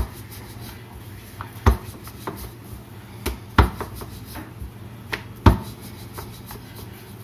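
Rolling pin rolling out a small ball of dough on a rolling board, with a handful of irregular sharp knocks as the pin and board knock together.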